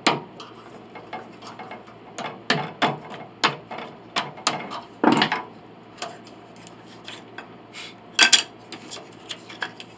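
Small hammer tapping wooden pinblock pieces into a tight fit under a piano's cast-iron plate: a series of irregular sharp taps and knocks, with a louder pair near the end.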